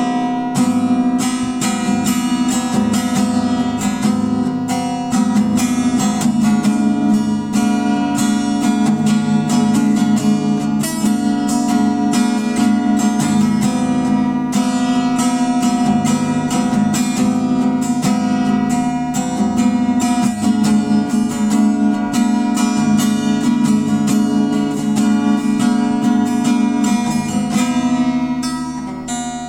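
Acoustic guitar music with strummed chords, steady and continuous.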